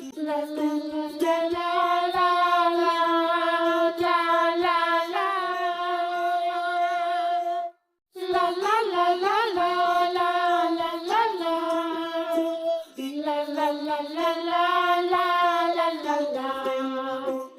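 Background children's tune carried by a wordless sung melody of held notes. It breaks off for a moment about eight seconds in.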